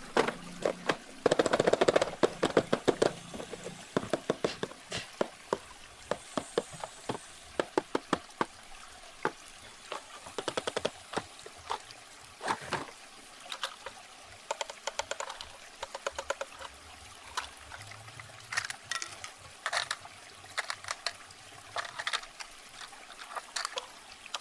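Irregular clicks, taps and rustles of a toy truck being unboxed and handled, most dense in the first few seconds, over a faint steady sound of running water.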